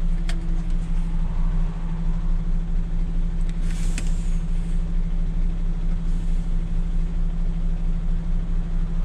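MAN truck's diesel engine idling steadily, heard from inside the cab as a constant low hum. A short high hiss comes about four seconds in.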